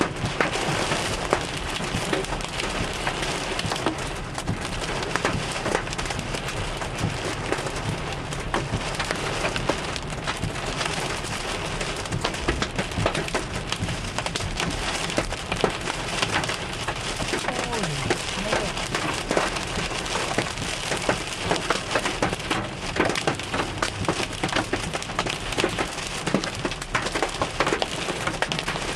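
Hailstones hitting a car during a hailstorm: a steady dense patter of many sharp clicks.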